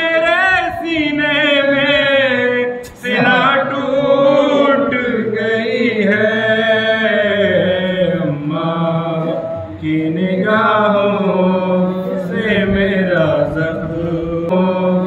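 Unaccompanied male voice chanting a noha, an Urdu lament, in long, held, wavering melodic lines. The voice breaks off briefly about three seconds in and again near ten seconds.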